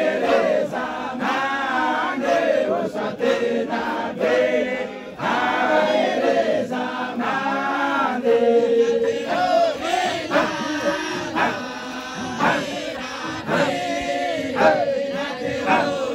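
A group of men chanting together in unison, a devotional chant repeating the name Muhammad.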